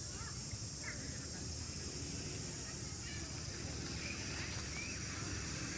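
Steady high-pitched insect chorus over a low rumble, with a few short, faint chirps near the start and again past the middle.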